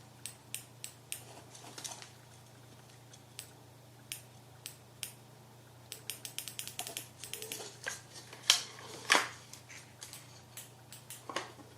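Small hard plastic clicks and taps from a camping lantern being handled, scattered throughout, with a quick run of clicks about six seconds in and two louder knocks near the nine-second mark. A faint steady low hum sits underneath.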